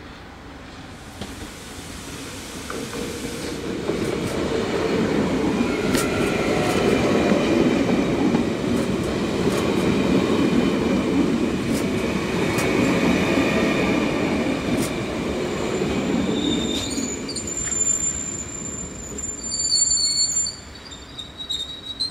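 NS VIRM double-deck electric train passing close at speed: wheel and rail rumble builds up, holds for about fifteen seconds with a few sharp clacks over the rail joints, then drops away near the end. High-pitched wheel squeals ring out over the last few seconds.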